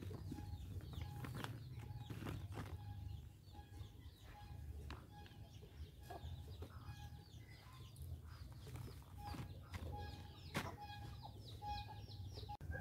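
Faint outdoor bird sounds: a short call repeats evenly about twice a second, with small chirps above it. Soft rustles and taps come from hands pressing soil into a plastic polybag.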